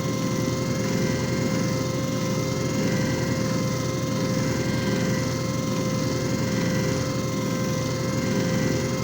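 JFJ Easy Pro disc repair machine running: a steady motor hum with a constant whine that does not change.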